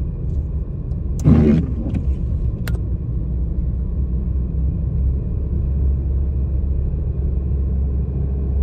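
Jeep engine pulling under load, with a steady low drone of engine and tyre rumble heard inside the cabin as it climbs through deep snow on all-terrain tyres. A brief loud burst a little over a second in, then a sharp click.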